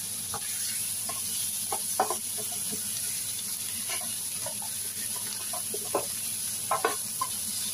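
Pork chunks, sliced onion and potato sizzling in a nonstick frying pan as they are sautéed, with a plastic spatula scraping and tapping the pan now and then, the sharpest tap about two seconds in and a few more near the end.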